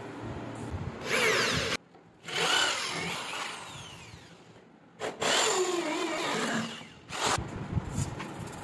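Power drill with a hole saw cutting a hole through a wooden plank, its motor pitch rising and falling as the saw bites. It comes in three runs broken by short cuts.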